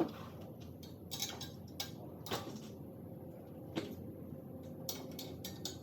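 Hand tools working the alternator's bottom bolt on a mini track loader's engine: faint, irregular metallic clicks and knocks of a 14 mm wrench on the bolt.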